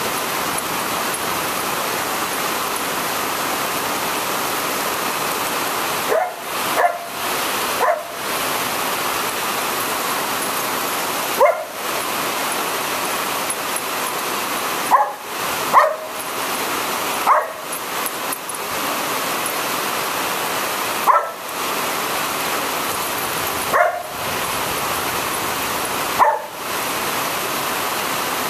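Border Collie barking at the rain: about a dozen short, sharp barks at irregular intervals, often two close together, starting about six seconds in. Steady hiss of heavy rain throughout.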